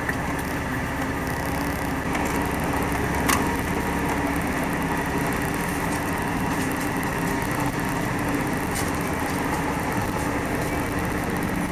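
Car engine idling steadily, heard from inside the cabin, with a single click about three seconds in.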